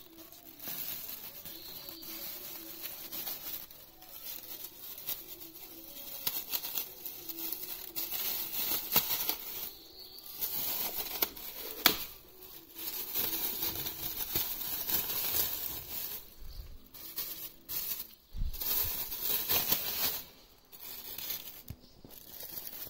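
Paint-stiffened plastic sheeting and masking tape being peeled and pulled off a freshly painted brake caliper: crinkling, tearing rustles in irregular bursts with short pauses, and one sharp snap near the middle.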